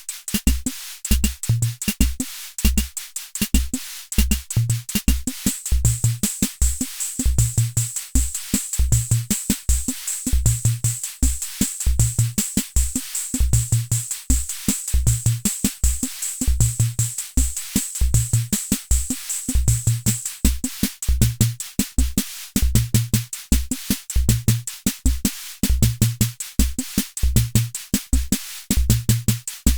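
Hammond Auto-Vari 64 analog rhythm machine playing one of its preset beats: a steady, looping pattern of low pitched drum thumps under fast, even cymbal or hi-hat ticks.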